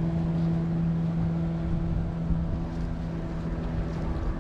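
A boat's engine droning at a steady pitch, fading away near the end, with wind rumbling on the microphone.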